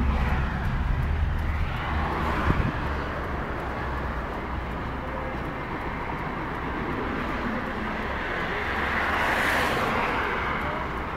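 Car driving with a window open: steady road and wind noise, with a low engine rumble near the start. A rushing swell builds and fades about nine seconds in.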